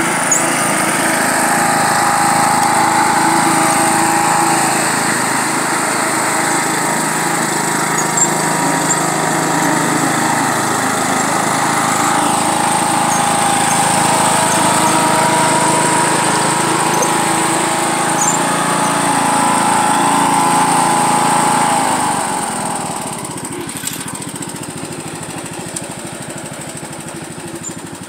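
John Deere LA105 riding lawn mower's engine running steadily as the mower drives along towing a load; the sound turns noticeably quieter about three-quarters of the way through.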